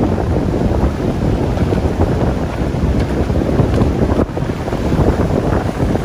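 Strong gusty wind buffeting the microphone: a loud, low rumbling noise that dips briefly about four seconds in.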